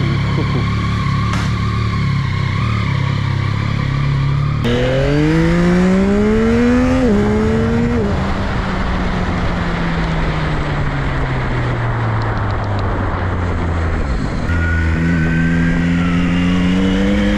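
2022 Yamaha XSR900's 890 cc inline-three engine running steadily, then accelerating from about five seconds in, its pitch climbing, dropping at a gear change and climbing again. The pitch then falls slowly for several seconds as the bike slows, and picks up again near the end, with wind rushing over the microphone.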